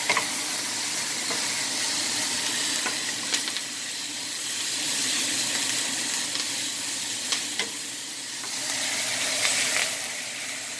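Sliced bitter melon frying in oil in a pan, a steady sizzle as it is stirred with a wooden spoon, with a few knocks of the spoon against the pan.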